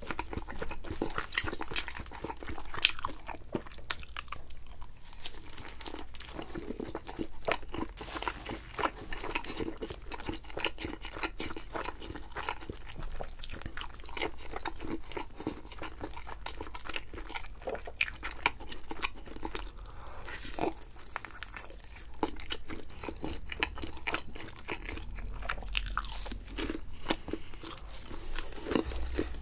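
Close-miked eating: continuous biting, chewing and crunching of thin-crust pizza, many small crisp crunches in an irregular stream.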